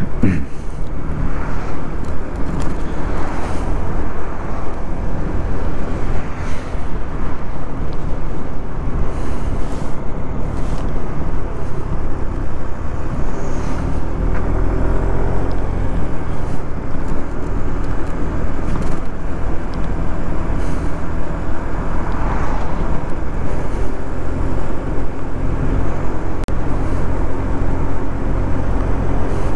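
Yamaha Majesty 155 cc scooter's engine running steadily while riding in traffic, with heavy low wind noise on the microphone; about halfway through, an engine note rises and falls in pitch.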